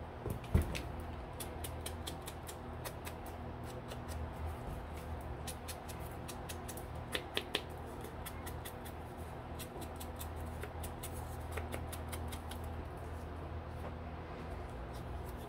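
Quiet background music, with light taps and scuffs of a foam ink blending tool dabbed on an ink pad and paper labels; a few sharper taps come about seven seconds in.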